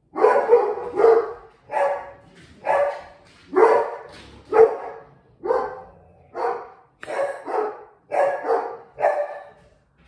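A dog barking repeatedly, about a dozen loud barks in a row, one every half second to a second.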